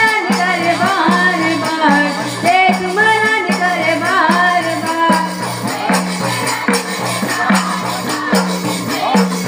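Live Panthi folk music: a singer's voice over a steady beat of drum strokes and jingling cymbals. The singing stops about halfway through, leaving the drum and cymbals.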